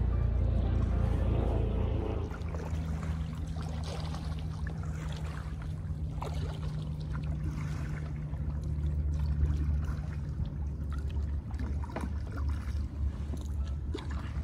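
Kayak paddle dipping and splashing in the water every few seconds, over a low steady hum.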